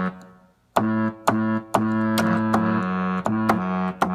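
Electronic keyboard on a trumpet voice playing a low two-note chord in short, repeated blasts that begin about a second in, an attempt at a ship's horn that is still not quite right.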